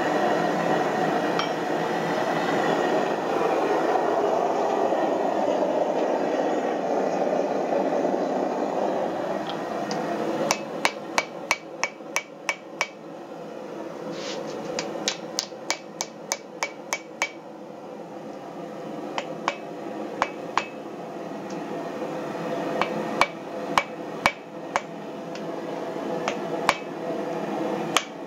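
Hand hammer striking a red-hot forged axe head on a steel anvil in runs of quick blows, about three a second, each with a short metallic ring, broken by short pauses. A steady rushing noise runs underneath and is loudest for the first ten seconds or so, before the blows begin.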